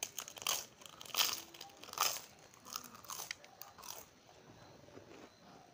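A crisp fried wafer being bitten and chewed, sharp crunches about every half second that give way to quieter chewing after about four seconds.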